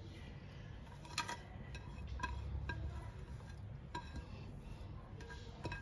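Faint, scattered clinks of a ceramic plate tapping against a ceramic bowl while shredded chicken is scraped off the plate by hand, about five light taps.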